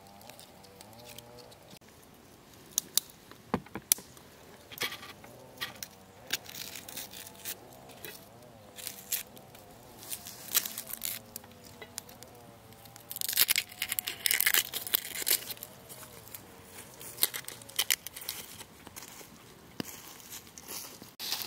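Hand food-preparation noises: tearing and crinkling with scattered clicks and knocks, and a denser stretch of crackling about two-thirds of the way through.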